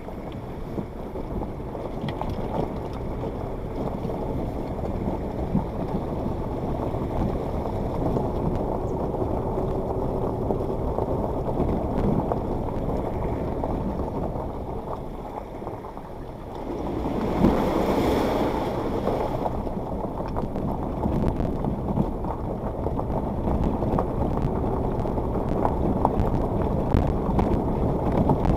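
Suzuki Jimny driving slowly over a stony gravel riverbed, with the engine running and the tyres crunching and rumbling over loose rocks. About 17 seconds in, a louder rush of splashing lasts a couple of seconds as the tyres go through a shallow stream channel.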